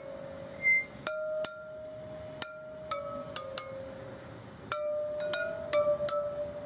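Motorcycle rear-wheel spokes struck one after another with a screwdriver while the wheel is turned: about a dozen sharp metallic pings, each ringing on briefly, at slightly different pitches. The pitch shows each spoke's tension: higher for a tight spoke, lower for a loose one that needs tightening.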